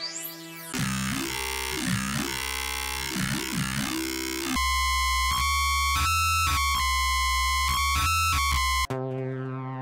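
Electronic synth presets from FL Studio's FLEX sampler being played one after another. A short rising tone opens it. A noisy, dubstep-style growl bass with wobbling pitch follows, then a loud, choppy distorted bass that stops and starts. Near the end this cuts off abruptly into a steady held synth tone.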